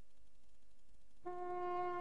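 Faint hum, then a little over a second in brass instruments come in on a held chord.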